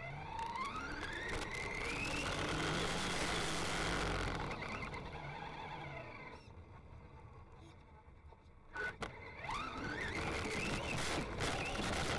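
Brushless motor of a Traxxas Rustler RC truck (Castle Creations 7700kv) whining as the truck accelerates. Its pitch rises over about two seconds, holds, then eases off. About nine seconds in there are a couple of sharp knocks, then a second rising whine as it speeds up again, over the rush of tyres on asphalt.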